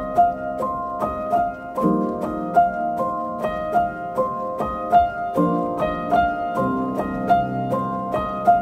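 Background music: a steady run of plucked notes over a lower accompaniment.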